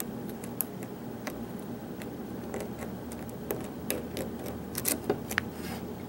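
Irregular faint metallic clicks of a thin feeler-gauge lock pick working the pins of a pin-tumbler knob cylinder held under light tension, the small clicks of pins being lifted and setting. A cluster of sharper clicks comes in the last couple of seconds.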